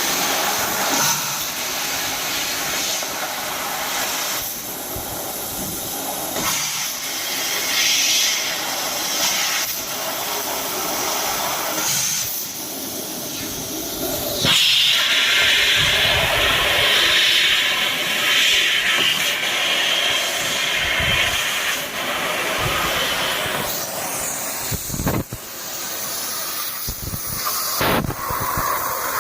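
Continuous hissing and rushing noise of sheet-metal machinery, turning brighter and louder about halfway through.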